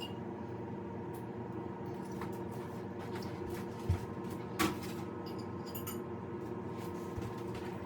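A fork or spoon working a plate of pasta and chicken: a soft low thump about four seconds in and a sharp clink just after, with faint scraping ticks, over a steady electrical hum.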